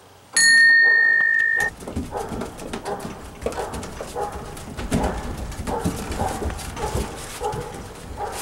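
A small wall-mounted bell is struck once to start the round and rings brightly for about a second before cutting off abruptly. It is followed by uneven thumps and shuffling of bare feet on a wooden porch deck as the sparring begins.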